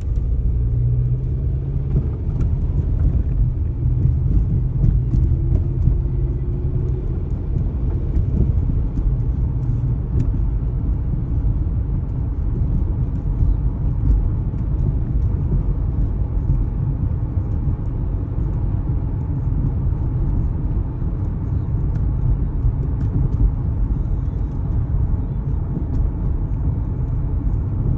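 2004 Toyota Corolla's engine and drivetrain heard from inside the cabin while driving: a steady low rumble as the car shakes, which the owner calls a funny shaking sound, almost like knocking.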